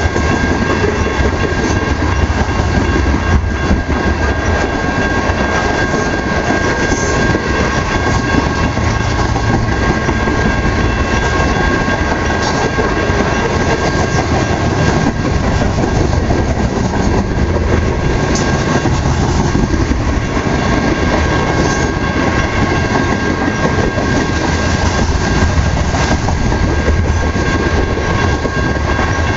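BNSF grain train's freight cars rolling steadily past, with continuous wheel-on-rail rumble and clickety-clack over the rail joints. Several faint steady high-pitched tones ring through it.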